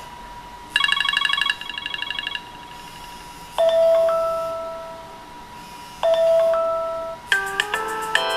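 iPhone speaker playing iOS 7 ringtone previews one after another, each cut off as the next is chosen: a fast run of pulsing electronic chimes, then a sustained electronic tone struck twice about two and a half seconds apart, then a new multi-note melody starting near the end.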